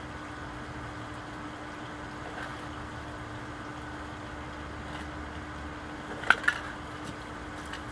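Steady background hum, broken about six seconds in by two sharp clicks in quick succession.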